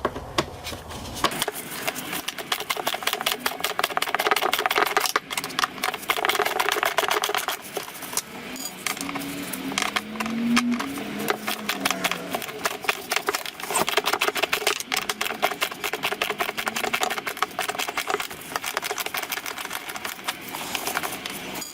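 Rapid, continuous mechanical clicking from a T25 Torx driver working out the screws that hold a mass airflow (MAF) sensor in its intake housing.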